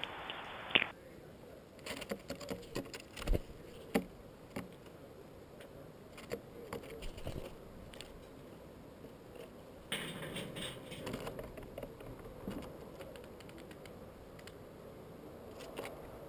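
Irregular light taps and clicks of peanuts being pecked and handled by feeding animals, with a short rustle about ten seconds in.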